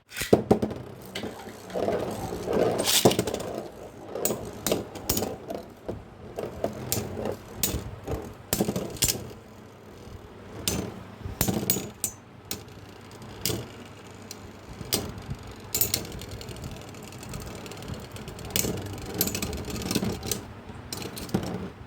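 Beyblade spinning tops whirring and clashing in a stadium, with irregular sharp clicks and rattles as they collide, over a steady low spinning drone.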